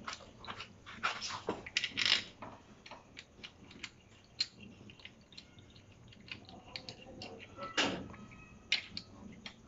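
Scattered metallic clicks, taps and clinks from hand tools and metal parts as a timing chain tensioner is fitted and bolted onto a Dodge 3.7 V6 engine, the loudest knocks about two seconds in and near the end.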